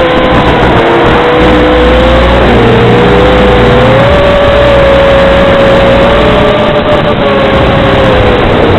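FPV quadcopter's electric motors and propellers whining, the pitch shifting with throttle: it dips a couple of times, rises about four seconds in, and falls again near the end.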